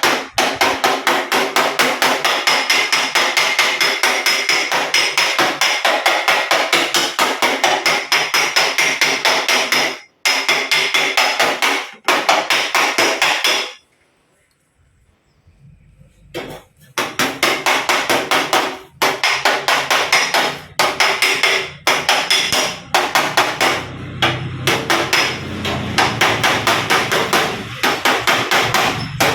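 Rapid, even hammer-type blows on a dented steel body panel in panel beating, each strike ringing metallically, with a pause about halfway through before the blows resume.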